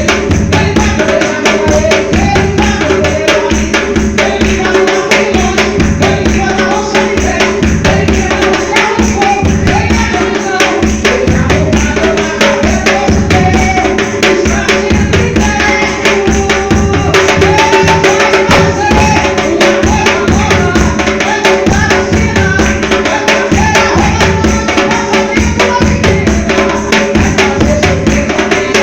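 Brazilian gospel music driven by timbal hand drums and a deep marcação bass drum, playing a dense, steady rhythm.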